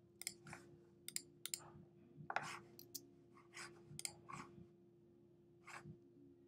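Faint computer mouse clicks, a dozen or so at irregular intervals, as options, buttons and a checkout link are clicked on a web page, over a faint steady hum.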